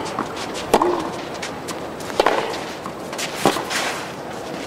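Tennis rally: three sharp racket strikes on the ball about a second and a half apart, with fainter knocks between them, over a steady background hiss.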